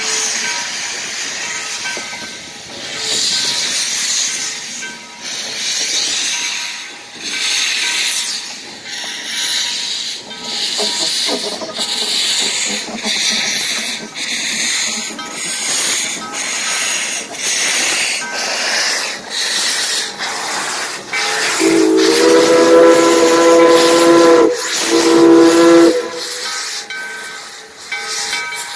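Nevada Northern No. 81, a Baldwin 2-8-0 steam locomotive, working slowly, with loud hissing puffs of steam about once a second. Its chime whistle sounds two blasts, a long one and then a short one, most of the way through, over the hiss.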